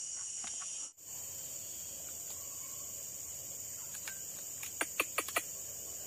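Steady high-pitched drone of forest insects, with four sharp clicks in quick succession near the end.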